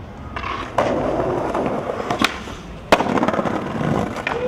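Skateboard wheels rolling over paving, with a sharp crack about a second in, a lighter click, and a loud clack of the board hitting the ground about three seconds in, then rolling on.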